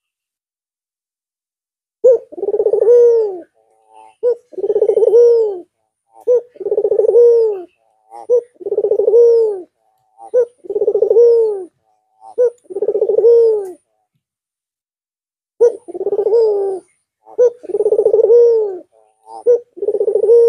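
White (albino) Barbary dove cooing over and over, starting about two seconds in: about eight phrases, each a short sharp note followed by a longer rolling coo that rises and falls, with a brief pause before the last three.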